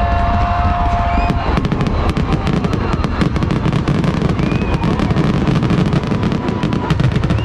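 Fireworks going off in a rapid, dense barrage of bangs and crackles that starts about a second in, over a continuous low rumble.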